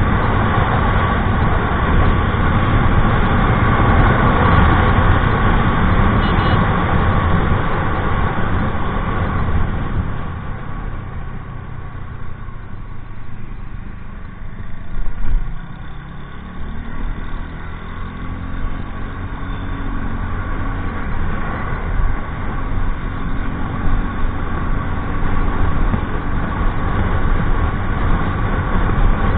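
Wind and road noise at about 80 km/h on a TVS Ntorq 125 scooter, dying away as it slows about ten seconds in. From about halfway, the scooter's single-cylinder engine rises in pitch as it accelerates again.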